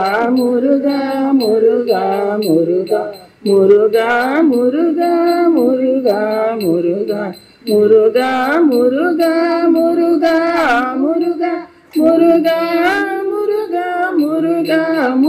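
A group of elderly women singing a devotional bhajan together into a microphone, line by line, with a short pause for breath about every four seconds.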